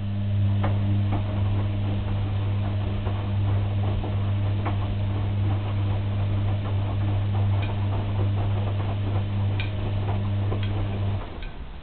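Washing machine running: a steady motor hum as the drum turns, with scattered small ticks and clicks over it. The hum stops suddenly about eleven seconds in, the pause between drum turns in a wash cycle.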